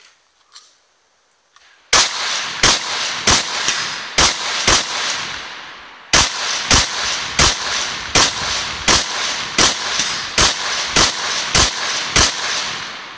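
A semi-automatic rifle firing a long string of about twenty shots, roughly two a second, each with a ringing echo. The shots start about two seconds in and break off for about a second midway before the string resumes.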